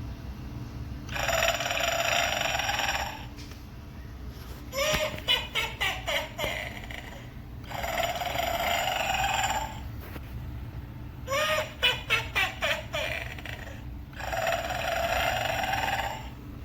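Gemmy animated sleeping witch Halloween figure playing its recorded snoring: a long snore about every six and a half seconds, each followed by a quick run of short sputtering puffs, over a steady low hum.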